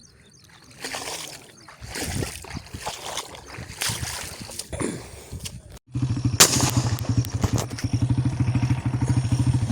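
Irregular rustling and scraping noises. After an abrupt cut about six seconds in, a small engine runs steadily with a rapid, even beat, and a sharp click comes soon after it starts.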